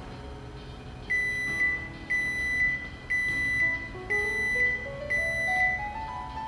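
Zojirushi EC-SA40 coffee maker's electronic beeper sounding a repeated high-pitched beep for about five seconds, starting about a second in. It signals that brewing is finished.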